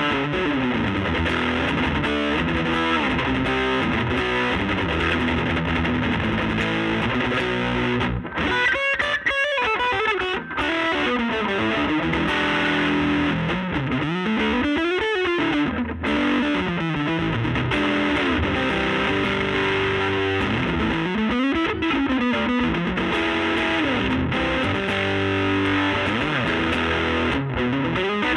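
Electric guitar with P90 pickups played through the overdriven gain channel of a Laney Lionheart L5 Studio valve amp into a 15-inch Jensen Alnico speaker. It plays distorted riffs and lead lines, with notes sliding up and down in pitch several times.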